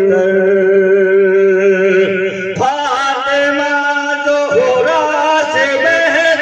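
A man singing a devotional Urdu nazm, a daughter's farewell song, into a microphone: a long, wavering held note, then a new melodic phrase about two and a half seconds in.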